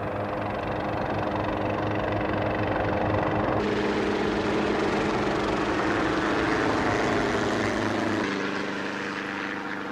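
Helicopter engine and rotor running steadily, the sound changing abruptly about three and a half seconds in and again near the end.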